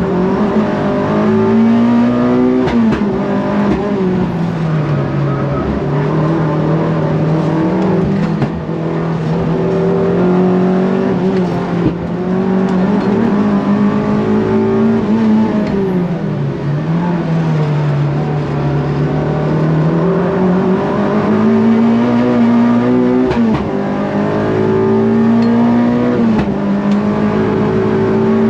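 Renault Clio engine driven hard on track: the revs climb, drop sharply at gear changes about 3 s in and again about 23 s in, and sag and build again through the corners.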